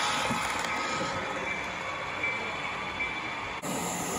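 Model passenger cars rolling past on the layout track: a steady rolling rumble of metal wheels on rail, with a few faint high squeaks. The sound changes abruptly a little after three and a half seconds.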